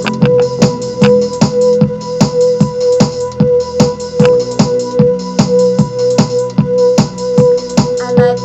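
Electronic music with a steady drum-machine beat of about four hits a second over held synthesizer and keyboard tones.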